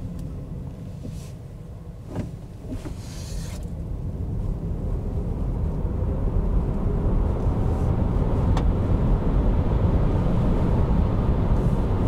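Cabin noise of a Cupra Born VZ electric car accelerating flat out from 0 to 100 km/h: a low road and tyre rumble from its 20-inch winter tyres that grows louder over several seconds as speed builds, then levels off. A couple of light clicks about two seconds in.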